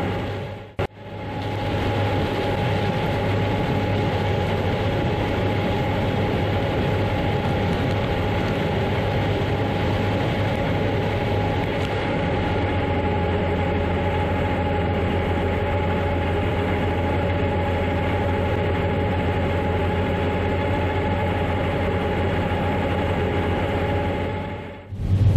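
Heavy harvest machinery running steadily: a constant low drone with a steady whine above it. It drops out briefly about a second in and fades out near the end.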